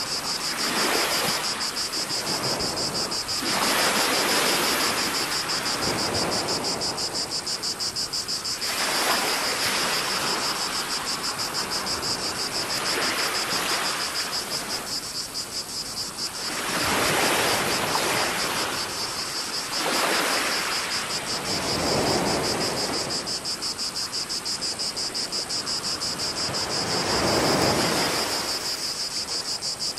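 Cicadas buzzing steadily in a shrill, rapidly pulsing drone, with sea water washing onto a rocky shore in swells every few seconds.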